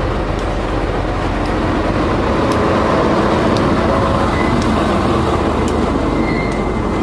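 A BB303 diesel-hydraulic locomotive passes at close range, its diesel engine running loudly and steadily, with a few sharp clicks.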